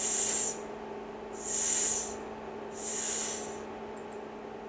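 A voice making the hissing 's' sound three times, each about half a second long and a second and a half apart: the sound a soft (short) C stands for, said slowly in a phonics drill.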